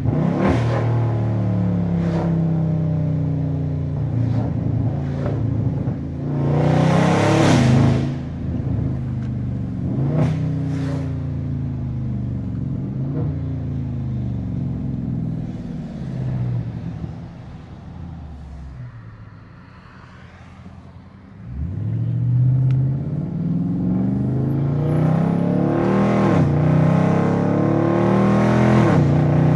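Catless, tuned Dodge 392 Scat Pack's 6.4-litre HEMI V8 exhaust under hard acceleration, the revs climbing and dropping back at each gear change. About two-thirds through it backs off to a quiet, low cruise, then pulls hard through the gears again.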